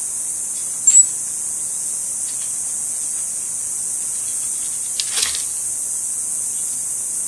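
A steady, high-pitched insect chorus. A short, sharp high chirp comes about a second in, and a brief scratchy rustle about five seconds in.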